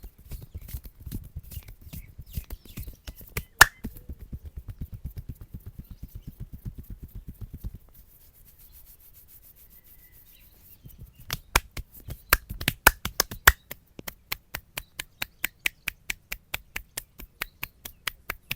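Hands rapidly tapping and slapping on a man's head in a traditional head massage. Quick, soft thuds, several a second, run for about eight seconds, then a brief lull. Sharp, crisp clicking slaps follow at about five a second.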